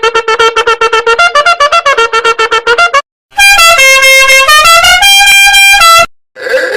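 Meme sound-effect clips of loud horn-like tones. First a fast run of short tooting notes, about ten a second, then after a brief gap a tune of held notes that jump between pitches. Another short clip begins near the end.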